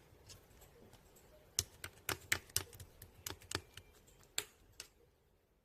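Crunchy slime being squeezed and pressed by hand, crackling and popping in a quick irregular run of about a dozen sharp clicks, thickest in the middle.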